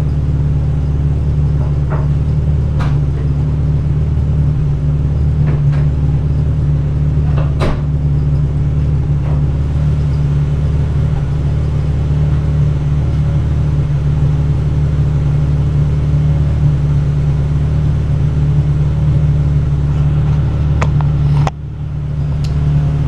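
1985 Mazda RX-7 GSL-SE's rotary engine idling steadily at a fairly low idle while it warms up after a cold start, with its emissions air pump still running. A few light clicks sound over it.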